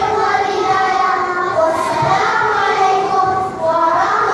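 A choir of young children singing together in long, held notes.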